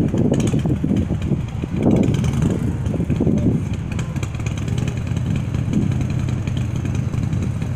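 Engine and road noise of a moving car heard from inside the cabin: a loud low rumble, uneven at first and settling into a steadier drone about halfway through.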